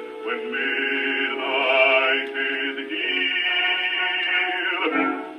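A 1923 Columbia 78 rpm record played acoustically on a Columbia 113a portable wind-up gramophone: a male bass voice singing an operatic song with accompaniment. The sound is thin, with no deep bass or high treble, and the line breaks off briefly near the end.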